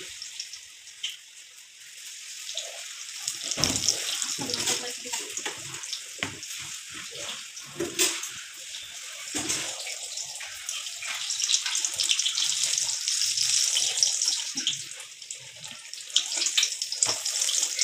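Battered eggplant slices (beguni) sizzling and crackling in hot oil in a steel wok, with a few knocks of a spatula against the pan.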